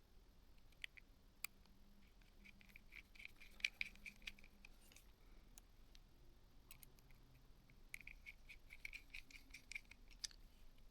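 Faint clicks and light scratching from small tools and plastic phone parts being handled during reassembly, with two runs of rapid ticking, one around three seconds in and one near the end.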